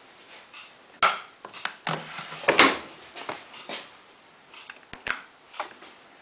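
Handling noises: a sharp knock about a second in, a run of clatters and knocks, then two quick clicks a little before the end.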